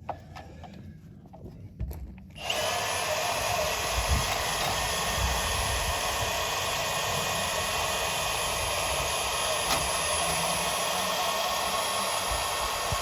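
A few light knocks, then about two and a half seconds in a portable band saw starts and runs steadily, cutting through PVC drain pipe.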